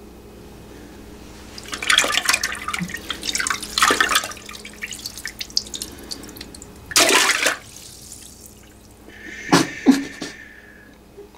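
Water splashing and sloshing in a toilet bowl in several irregular spells. Near the end comes a steady hissing flow.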